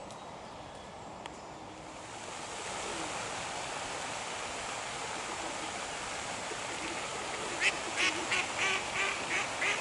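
A run of short repeated bird calls, two to three a second, starting about eight seconds in over a steady background hiss.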